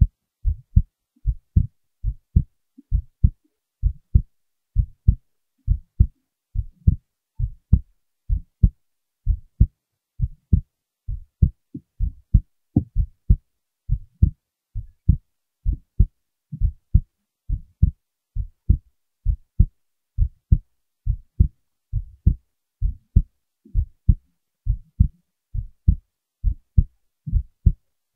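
Heartbeat recorded close up: a steady, regular rhythm of paired low thumps, the lub-dub of each beat.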